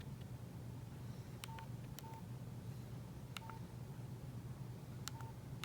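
Nokia 8600 Luna keypad pressed four times, each press a click followed by a short beeping key tone, over a steady low hum.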